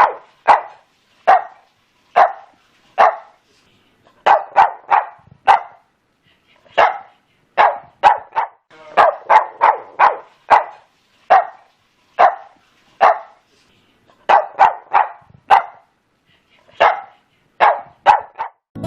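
A dog barking repeatedly in short sharp barks, some single and some in quick runs of two to four, with brief pauses between.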